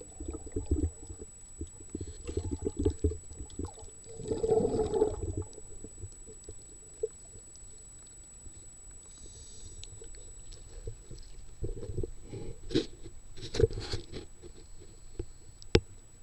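Muffled, irregular gurgling and sloshing of water with low rumbles and a few sharp knocks, loudest about four to five seconds in.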